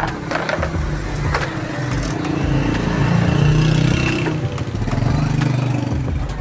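A motor vehicle's engine running, growing louder through the middle and then easing off, with a few sharp clicks.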